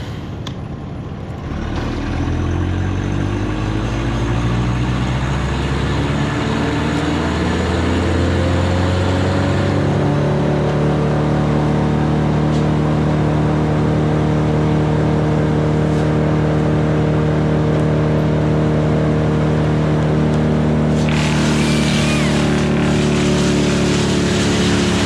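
A motor or engine speeding up over several seconds, its pitch climbing steadily, then running at a constant high speed.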